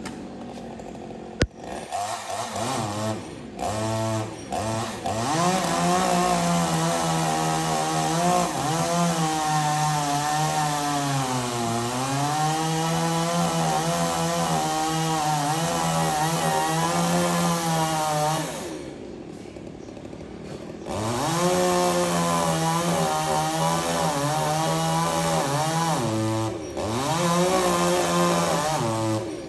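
Chainsaw engine running at high revs with its pitch rising and falling, sagging around the middle as if under load in a cut. It drops back to idle for a couple of seconds, then revs up again.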